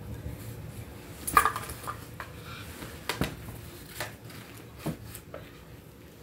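Scattered sharp clicks and light knocks, the loudest a little over a second in, over a faint steady low hum.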